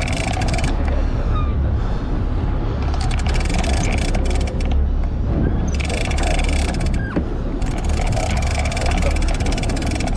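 Sportfishing boat's engine running steadily at low speed as the boat backs down on the fish, a constant low hum under a wash of water and wind noise.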